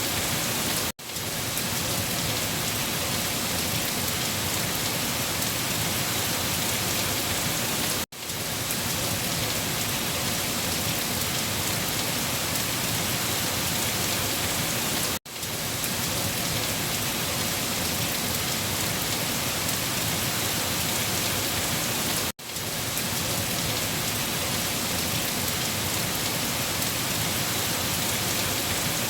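Heavy rain falling steadily on leaves, a dense even patter. It cuts out for a split second about every seven seconds.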